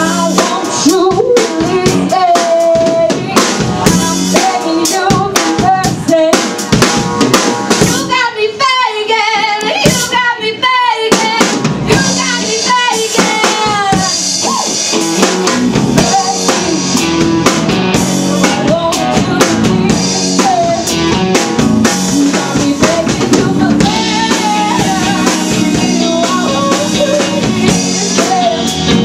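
Live band playing amplified at a sound check: a full drum kit with snare and bass drum drives the song under the other instruments. About eight seconds in the drums drop out for a few seconds, leaving a wavering melody line, then the full band comes back in.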